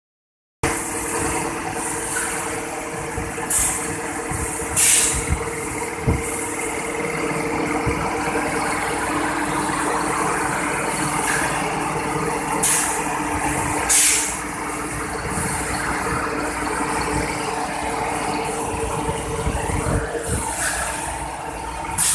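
High-pressure PET-blowing air compressor running steadily, its electric motor and pump giving a steady hum and clatter. Pairs of short, sharp air hisses, about a second apart, cut in roughly every nine seconds.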